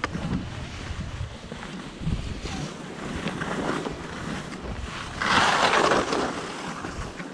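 Skis hissing and scraping over packed and loose snow, with wind buffeting the microphone. About five seconds in, a louder rush lasting about a second as the skis cut a turn through powder and throw up snow.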